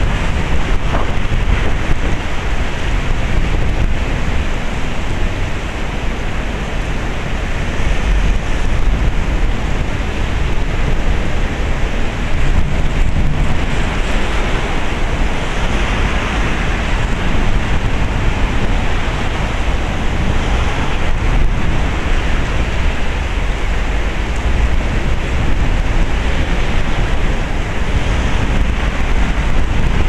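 Heavy typhoon rain pouring down steadily, a dense hiss that swells a little for a few seconds around the middle, with wind rumbling on the microphone.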